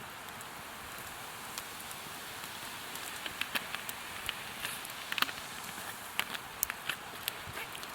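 Cooking over a campfire: a steady sizzling hiss with scattered sharp crackles and pops, which come more often from about three seconds in.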